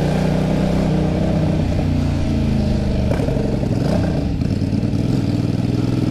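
Kasinski Mirage 250's V-twin engine running as the motorcycle is ridden. The engine note falls and then climbs again a little past halfway as the bike takes a corner.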